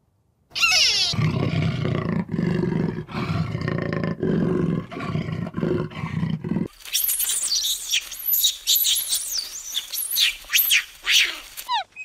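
Leopard growling in repeated rough, deep roars for about six seconds. Then an abrupt cut, at about seven seconds, to a chorus of high, quickly falling chirping calls.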